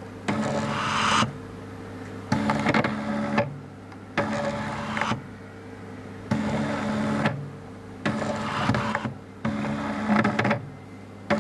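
Stepper motor of a 3D-printed DIY ventilator prototype driving its belt-and-pulley pusher back and forth, whining in about six strokes of roughly a second each with short pauses between, as the machine cycles through breaths.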